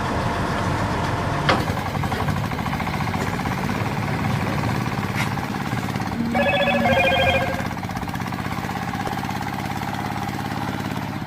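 An engine running steadily with a rough, even rhythm, with two short pitched tones sounding one after the other about six seconds in.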